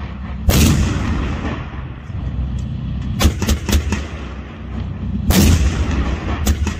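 A main battle tank's main gun firing: loud blasts about half a second in, again around three seconds with a cluster of sharp cracks, and near five seconds, with the engine's low rumble running between the shots.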